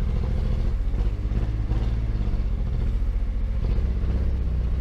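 1975 Datsun 280Z's fuel-injected straight-six engine running at a steady speed, poorly. The owner suspects a clogged fuel filter is starving it.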